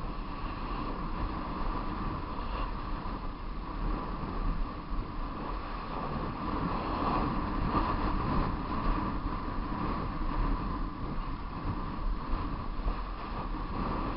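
Wind rushing over the microphone of a bike-mounted camera on a road bike descending at speed, an unbroken noise that swells and dips a little, with a steady tone running under it.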